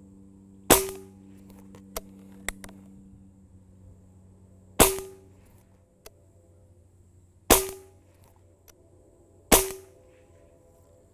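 A Benjamin Maximus .177 pre-charged pneumatic air rifle fires four shots, each a sharp crack with a brief ringing tail. The gaps between shots are about four, three and two seconds, and each pellet leaves at about 1,000 feet per second. A couple of faint clicks fall between the first two shots.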